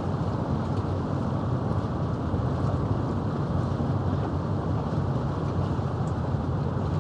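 Steady wind rumble buffeting the microphone, over the wash of sea water against a concrete breakwater.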